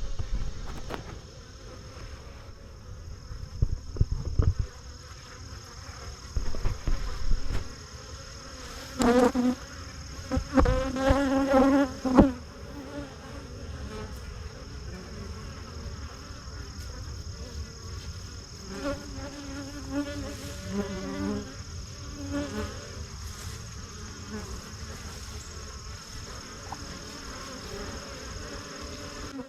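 Honey bees buzzing close to the microphone, single bees flying past with a wavering buzz that swells loudly about nine to twelve seconds in and again around twenty seconds in, over a steady faint high-pitched drone.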